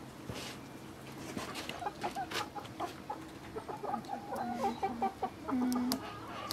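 Domestic chickens clucking: a run of short calls that grows busier after the first couple of seconds and ends with one longer, lower call.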